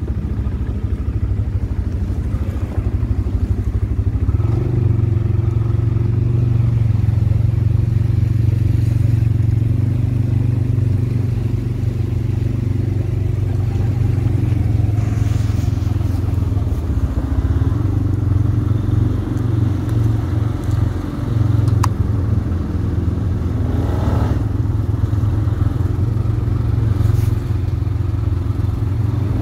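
CFMoto CForce ATV engine running steadily under way off-road, with a rise in revs near the end.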